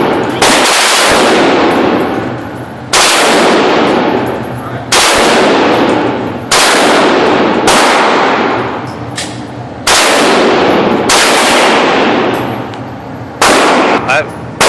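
Gunshots on a shooting range: about nine single shots fired one to two seconds apart, each with a long echoing tail.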